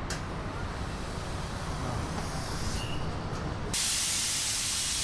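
Compressed air hissing as a motorcycle tyre is inflated from an air line. The hiss jumps suddenly louder and brighter a little over three and a half seconds in.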